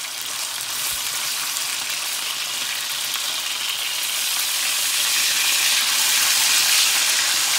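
Pork loin steaks sizzling in a frying pan as their fat renders and they brown. The sizzle grows louder over the last few seconds.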